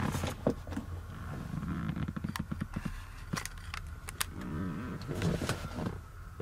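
Scattered small clicks and knocks of handling over a steady low hum in a car cabin.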